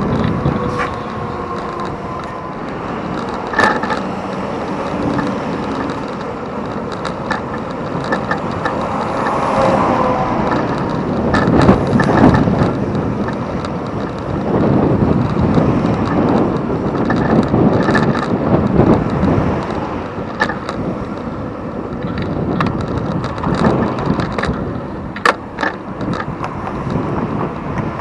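Riding noise from a bicycle-mounted camera: wind rushing over the microphone with road and traffic noise, and scattered clicks and rattles from the bike.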